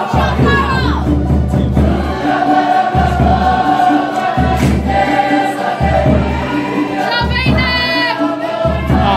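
A group of young voices singing a Cook Islands song together, with gliding, swelling melody lines, over a drum beating a steady repeating pattern.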